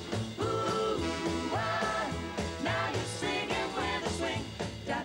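Swing-band backing with a four-voice vocal harmony group singing held notes together over a steady pulsing bass line.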